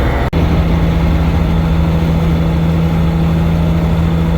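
Toyota Chaser driving at freeway speed, held in fourth gear at high revs: a steady engine and road drone with one strong even tone. There is a brief break in the sound just after the start. The revs are kept up because the alternator is failing and the battery voltage is sagging.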